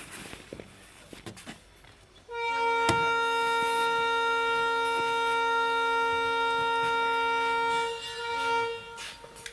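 Train horn sounding one long steady blast of about five and a half seconds, then a short second toot. A sharp knock is heard just after the blast begins.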